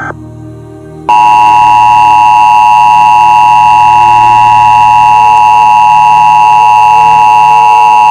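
Emergency Alert System broadcast signal. The tail of a warbling SAME header data burst cuts off at the start, and after about a second's pause the EAS two-tone attention signal (853 and 960 Hz together) sounds loud and unchanging for about seven seconds.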